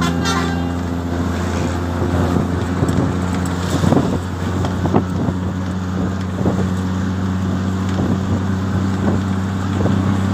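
Steady engine drone of a moving road vehicle, heard from inside it, with wind noise and a few short knocks in the middle.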